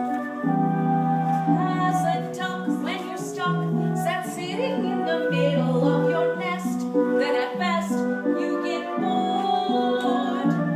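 Music: a melodic passage of held notes that change about once a second, with crisp note attacks.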